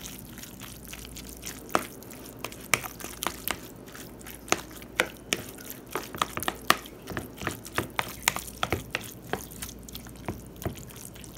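Metal spoon stirring a thick, mayonnaise-dressed tuna salad in a bowl: irregular clicks and taps of the spoon against the bowl, a few each second, over a soft mixing noise.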